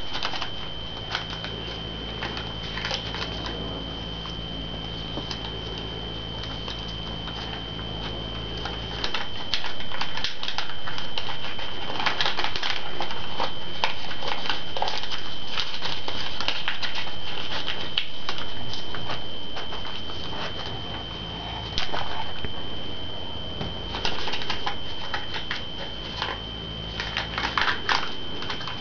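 Paper being folded and creased by hand: irregular crinkles, rustles and small taps. Under it a steady high-pitched whine runs throughout, with a low hum during the first third and again near the end.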